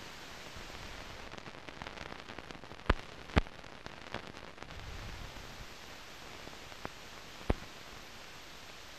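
Steady hiss of a 1930s optical film soundtrack, broken by a few sharp clicks and pops: two close together about three seconds in, a smaller one soon after, and another near the end.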